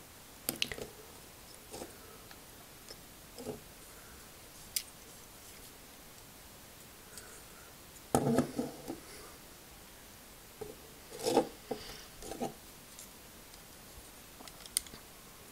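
Plastic Lego bricks being handled and pulled apart: scattered sharp clicks and light rattles, with two louder bursts of handling about eight and eleven seconds in.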